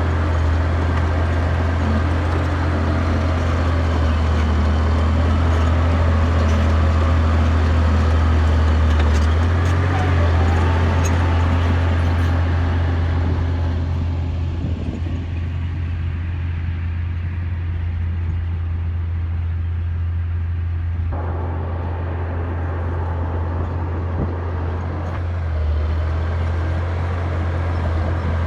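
Caterpillar D6D bulldozer working in shale and clay: its diesel engine runs steadily under load, with track and ground clatter over it. The clatter eases for several seconds about halfway through, then picks back up.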